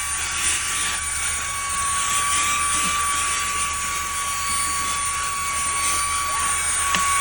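Eufy H30 handheld cordless vacuum running steadily, a constant high motor whine over a rush of air, as it sucks dog hair out of car carpet.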